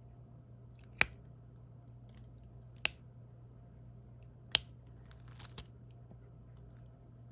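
Diamond painting pen pressing small drills onto the sticky canvas: three sharp clicks about a second and a half apart, then a quick little cluster of clicks near the end, over a low steady hum.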